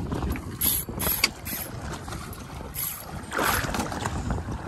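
Wind and sea noise aboard a small fishing boat, with a few sharp clicks and knocks about a second in and a louder swell of noise near the end.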